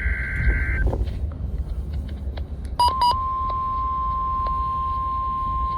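NOAA Weather Radio receiving a weekly test: the buzzing SAME digital header burst cuts off in the first second. About three seconds in, after two short blips, the steady 1050 Hz warning alarm tone starts and holds, over the car's low road rumble.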